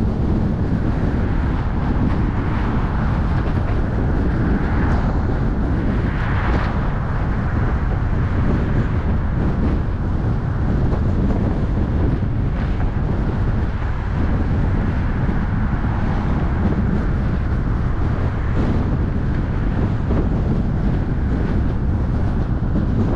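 Steady wind buffeting the microphone over the running noise of a moving car.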